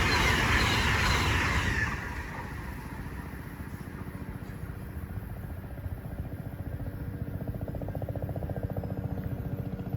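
Noise of a passing train dying away over the first two seconds, leaving a low rumble with a fast, even pulsing that grows louder toward the end.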